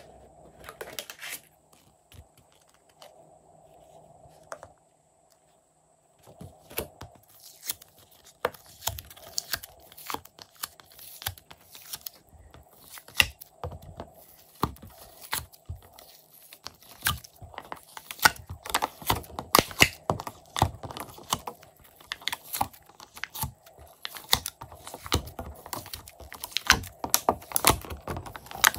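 Fingers pressing into and pulling glossy slime out of a clear plastic grid tray, making sticky clicks and crackles. A few clicks come first, then a brief silence, then the clicks turn rapid and dense.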